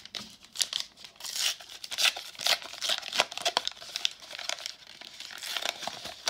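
Foil wrapper of a 1991 Upper Deck baseball card pack being torn open and crinkled by hand, a rapid, irregular crackling.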